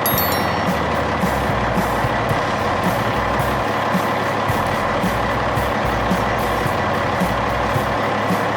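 Heavy truck engine running steadily, with a steady-beat backing track underneath.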